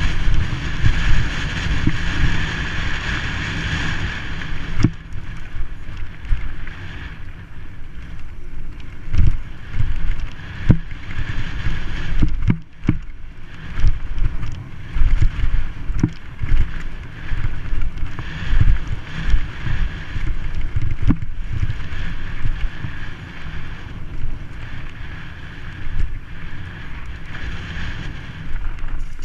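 Wind buffeting the helmet camera's microphone over the rumble of mountain bike tyres on a dry dirt trail. Several sharp knocks and rattles break in as the bike hits bumps and rocks.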